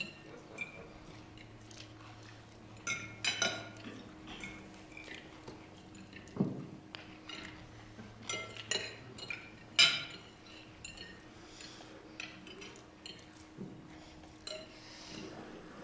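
Cutlery and glassware clinking on plates and the tabletop: scattered sharp clinks and taps, the loudest about ten seconds in, over a faint steady low hum.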